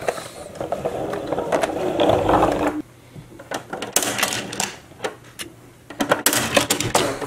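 Plastic toys being handled: a dense rattling buzz that stops abruptly about three seconds in, then sharp plastic clicks as the roll-up doors of a toy garage are pulled open, thickest near the end.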